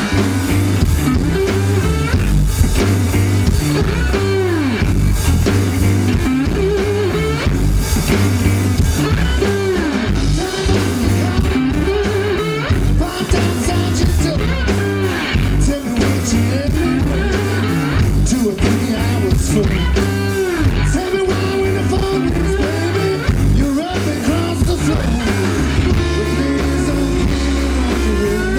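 Live electric blues band playing: electric guitars over a drum kit, the lead guitar bending its notes.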